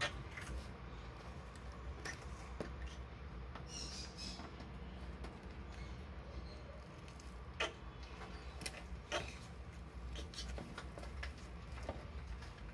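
Red-footed tortoises mating: about half a dozen short, sharp clicking sounds at irregular intervals from the pair, over a faint low rumble.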